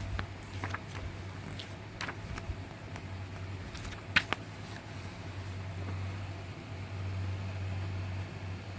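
Packaging and a media case being handled: small clicks and rustles, with one sharper click about four seconds in, over a steady low hum.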